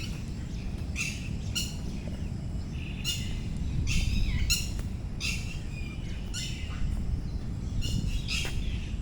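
Birds calling in short, high chirps repeated every second or so, over a steady low rumble that swells briefly about four seconds in.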